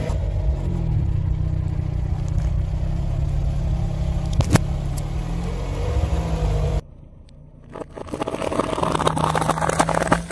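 Car engine running at low speed as the tyre rolls slowly over objects, with a single sharp pop about four and a half seconds in. After a break, dense crunching and crackling near the end as the tyre crushes a packet of dry penne pasta.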